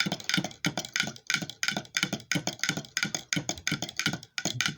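Rapid, even mechanical clicking, about four to five clicks a second, running steadily throughout.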